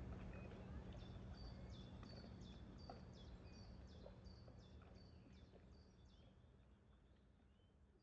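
Faint outdoor field-recording ambience fading out: a low rumble and steady hum under a run of short, high, bird-like chirps, each dropping in pitch, repeated about three times a second. The chirps start about a second in and stop around six seconds in.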